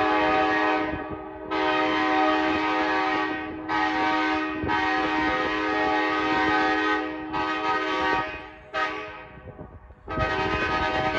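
Multi-chime locomotive air horn sounding a run of about seven blasts, some long and some short, each a steady chord. There is a longer gap before the last blast.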